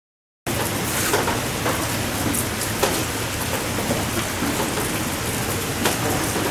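Steady hiss of outdoor ambience at a driving range, like rain, starting suddenly about half a second in, with a few faint clicks.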